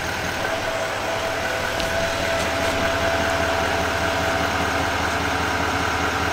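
Heavy-duty pickup truck engine idling steadily, with a steady electric motor whine coming in about a second in, as the fifth-wheel trailer's landing-gear jacks retract and lift off the ground, putting the pin weight onto the truck.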